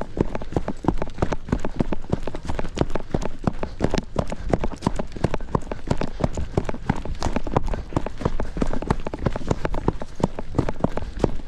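Running footsteps: a quick, steady patter of footfalls that keeps going without a break.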